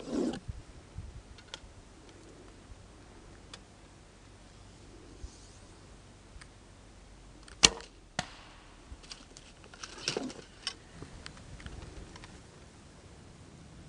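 A custom 70-inch, 35 lb Marbow longbow being shot with a finger release: a single sharp snap of the string about two-thirds of the way in, followed about half a second later by a fainter knock. Softer rustles and small clicks come at the start and again a little later.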